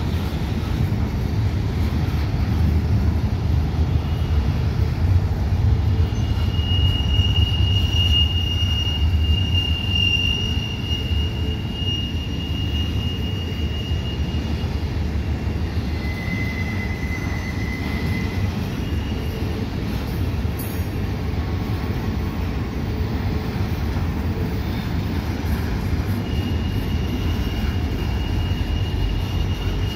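Double-stack intermodal freight train rolling past on a curve: a steady low rumble of cars and wheels, with thin high wheel squeals that come and go, the longest from about seven to fourteen seconds in.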